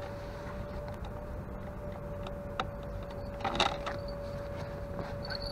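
Outdoor harbour ambience: a steady hum over a low rumble, with a few light clicks and a short clatter of handled gear about three and a half seconds in.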